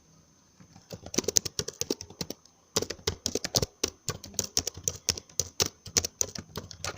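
Typing on a computer keyboard: rapid key clicks start about a second in, pause briefly, then go on as fast continuous typing.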